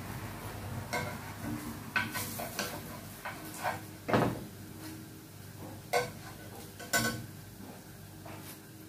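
Metal slotted spoon clinking and scraping against a frying pan as fried potato pancakes are lifted out, in scattered sharp knocks about a second apart, the loudest about four seconds in.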